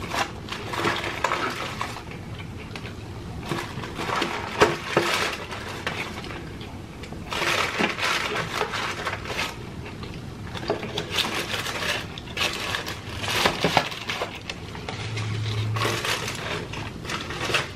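Close-miked crunching of crispy fried chicken being chewed, mixed with paper crinkling from a fast-food paper bag and fry box handled right at the microphone, in irregular bouts of a second or two.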